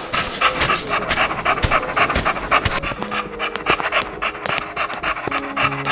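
A dog panting rapidly, in quick, even breaths of about five a second.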